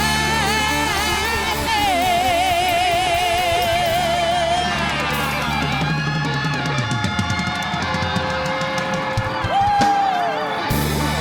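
Live rock band playing near the end of a song: electric guitar holds a wavering note with heavy vibrato, then slides down, over bass and drums. A run of rapid drum hits builds from about halfway, and a guitar note slides sharply up near the end.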